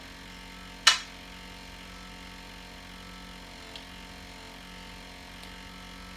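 A single sharp knock or clack about a second in, with a much fainter tick a few seconds later, over a steady low hum.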